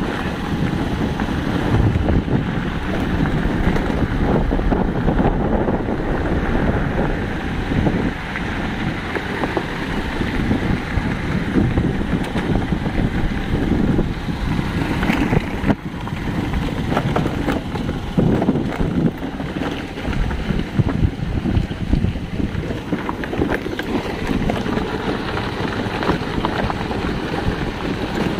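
Wind rushing and buffeting over the microphone, with a vehicle engine running steadily beneath it.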